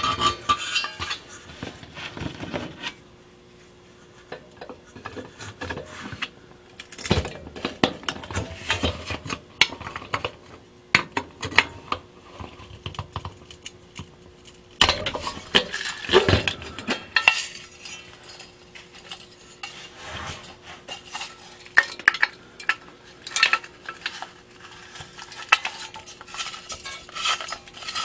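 Irregular metallic clinks, scrapes and rattles of an old brass electric lamp being handled and taken apart by hand, with a small wrench worked on the nut at its top. There is a short quieter lull a few seconds in.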